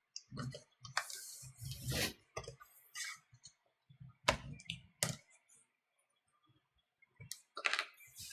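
Irregular plastic clicks and scraping as the back cover of an Alba 10Nou tablet is pried open, its clips coming apart, with a short pause before the last few clicks.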